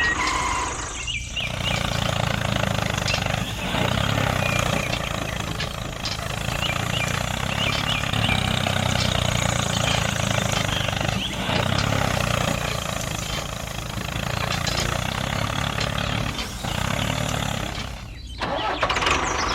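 Vehicle engine running steadily, with two brief breaks, about a second in and near the end.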